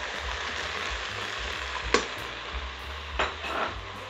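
Steady sizzling of beef liver, onion and carrot frying in a hot multicooker bowl as cubed raw potatoes are stirred in. A spoon knocks sharply against the bowl about two seconds in and again about three seconds in.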